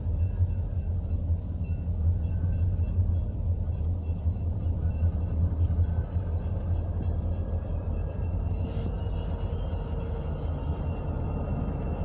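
Union Pacific diesel-electric freight locomotives running as they approach slowly, a steady deep engine rumble. A brief hiss about nine seconds in.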